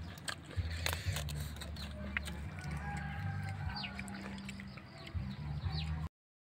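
Outdoor ambience: a low rumble on the microphone with scattered sharp clicks, and a few short falling bird chirps in the second half. The sound cuts off about six seconds in.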